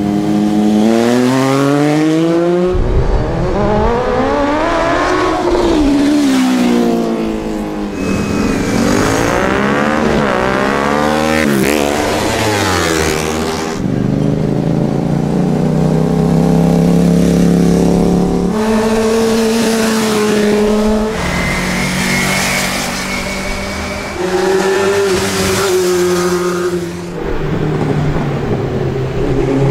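Engines of sport motorcycles and cars accelerating hard past, several in turn, each climbing in pitch through the gears and falling away as it passes. In the second half an engine holds steadier revs, with a few sudden jumps in pitch.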